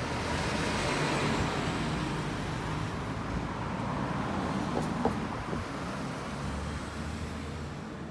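Road traffic noise: a passing vehicle swells in the first second or two and then slowly fades.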